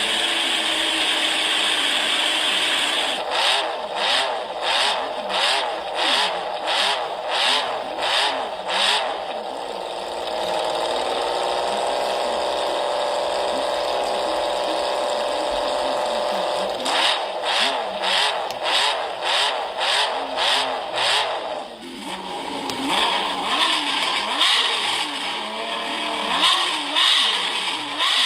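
Honda CBX 1000's inline-six engine revved in quick repeated throttle blips, about one and a half a second. Partway through it is held at a steady speed for several seconds, then blipped again and revved unevenly near the end.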